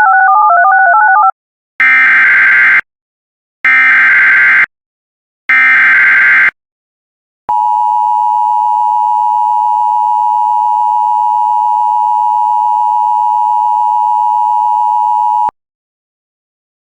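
Emergency Alert System broadcast tones. A short warbling two-pitch tone is followed by three one-second bursts of SAME header data, a buzzy digital screech about two seconds apart. Then comes the steady two-tone EAS attention signal for about eight seconds, which cuts off suddenly.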